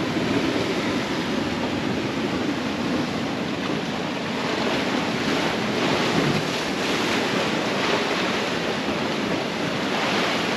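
Ocean surf washing over and between lava rocks, a steady rushing wash with wind buffeting the microphone.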